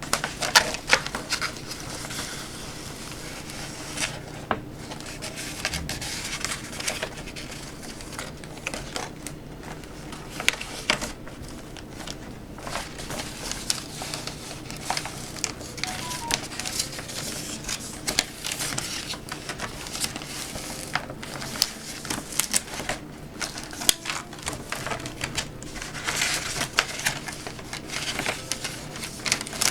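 Adhesive puzzle-backing sheet being peeled off its paper backing and pressed down onto the back of a jigsaw puzzle by hand: crinkling and rustling of paper and plastic film, with many irregular small clicks and taps.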